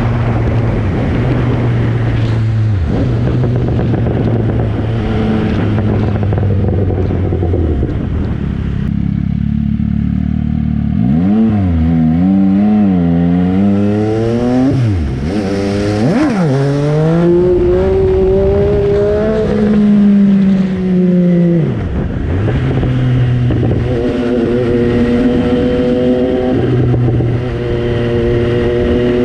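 MV Agusta Brutale 800's three-cylinder engine being ridden through the gears. The revs swing up and down in quick succession around the middle, and elsewhere climb in pitch and drop back at each gear change.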